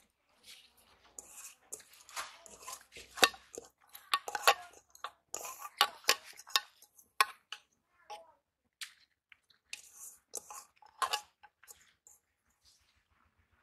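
Irregular clinks and knocks of a metal cooking pot and lid, with a calf rustling and chewing straw and rice in a feeding trough.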